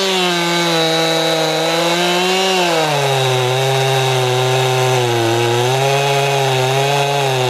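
Two-stroke chainsaw cutting at full throttle through a dried red oak log. About three seconds in, its engine note drops as the chain bites deeper under load, then holds steady.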